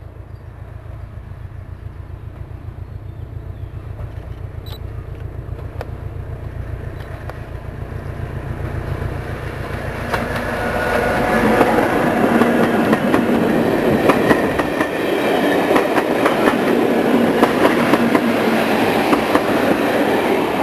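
A diesel locomotive hauling passenger coaches approaches and passes close by. Its engine's low, pulsing beat grows louder, and from about halfway the wheels clatter over the rails as the loco and coaches go past.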